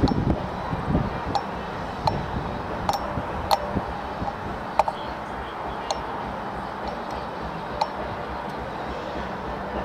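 Outdoor ambience: a steady low rumble broken by about ten sharp clicks at irregular intervals, the loudest a little before the middle.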